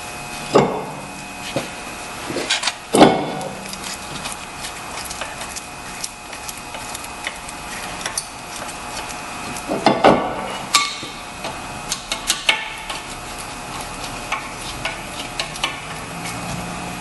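Screwdriver turning the retaining screw that holds a new rear brake rotor onto the hub of a Kia Spectra: metallic scraping and small clinks, with a few sharper metal-on-metal knocks, the loudest about three seconds in and again about ten seconds in.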